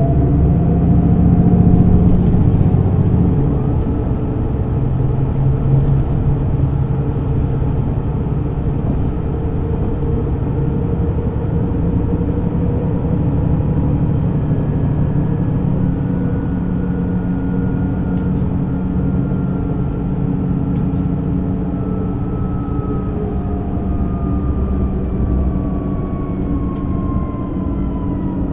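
MAN NÜ 280 (Lion's City A20) city bus running under way: the diesel engine's steady drone with a thin whine from the ZF automatic gearbox. The whine glides in pitch, falling slowly over the last ten seconds.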